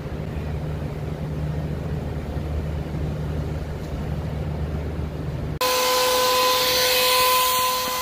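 Steady low electric hum of the Tesla Model 3's coolant pumps running after the low-voltage battery is connected, while the coolant loop bleeds. About five and a half seconds in it cuts off abruptly, and a louder steady hiss with a high whine takes over.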